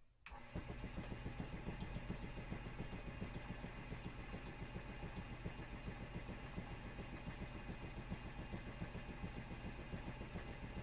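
Wood lathe switched on about a third of a second in and spinning an off-balance wooden blank, its motor running with a fast, even pulsing throb from the out-of-balance workpiece rocking on the lathe.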